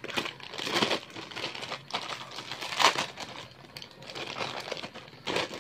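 Clear plastic packaging bag crinkling as it is handled and opened, in irregular crackles, the loudest a little past the middle.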